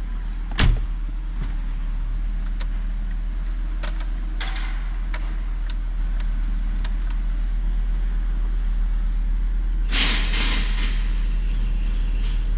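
Volkswagen Transporter T4's 2.5-litre inline-five petrol engine idling steadily, heard from inside the cab. A sharp thump comes about half a second in, with a few light clicks and a brief rustle of handling later.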